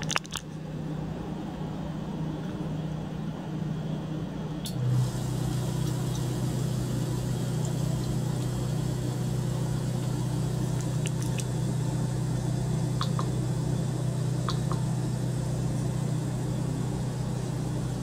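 Small water circulation pump running with a steady low hum as it circulates water through the tank's tubing. About five seconds in, after a brief surge, the hum settles slightly lower in pitch. A few faint ticks are scattered through it.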